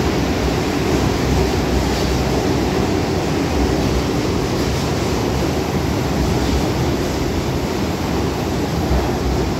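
Steady rumbling roar of subway trains echoing through an underground New York City subway station, an even noise with no distinct events.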